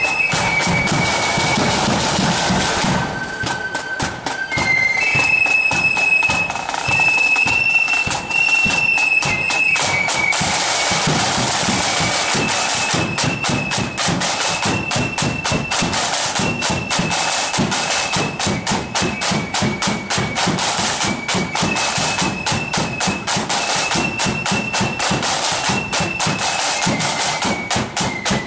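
Marching flute band playing a tune: high flutes carry the melody over rapid, continuous side-drum strokes.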